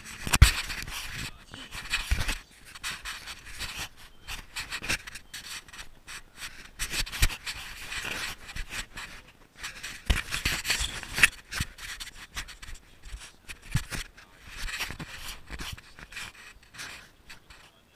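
Handling noise from a GoPro Hero 3 action camera in its housing rubbing and knocking against a life jacket and its straps. The result is irregular scraping with frequent small clicks and knocks.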